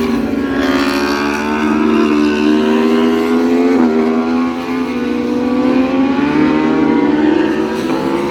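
Track-day motorcycle engine running at high revs, its pitch sliding down and back up with the throttle. There is a brief hitch in the pitch about four seconds in.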